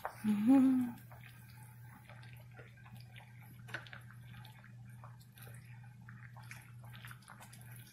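Faint soft clicks and small wet ticks of a spoon stirring a pot of simmering soup, over a steady low hum. Near the start, a brief hummed voice sound with a rising pitch.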